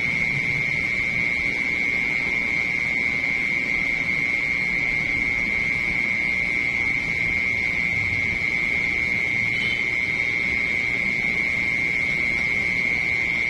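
A continuous, steady high-pitched trill from insects singing at night, over a faint low background noise.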